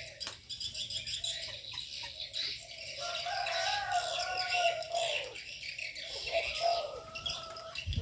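Small birds chirping and twittering steadily, with doves joining in from about three seconds in with low, drawn-out coos.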